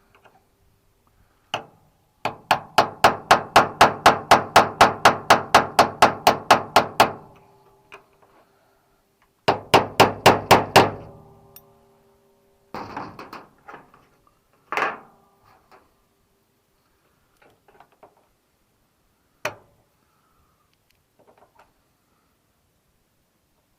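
Hammer tapping a punch against a snapped-off screw stub, to loosen its seized bond. The taps come in a fast, even run of about four a second for roughly five seconds, then a shorter run, then a few scattered single knocks.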